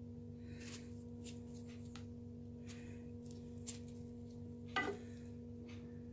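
Faint soft rustles and light ticks of a knife slitting green chillies lengthwise by hand, over a steady low hum. A brief louder sound comes just before five seconds in.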